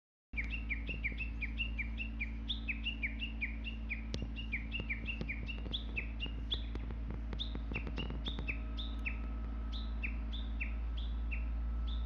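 Japanese bush warbler (uguisu) calling a long, rapid run of short repeated notes, several a second, that drop in pitch, like its 'ke-kyo ke-kyo' valley-crossing call. Scattered light clicks fall in the middle of the run, over a steady low rumble.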